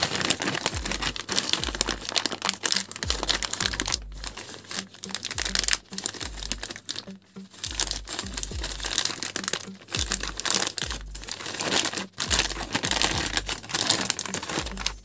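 Thin clear plastic bag crinkling and rustling as hands work a circuit board out of it, going on and off with short pauses.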